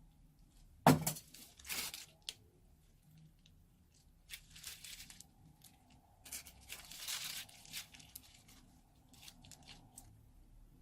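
Slime being squeezed and worked out of a plastic piping bag, making crackling, sticky squelching sounds in several bursts. A sharp pop about a second in is the loudest sound.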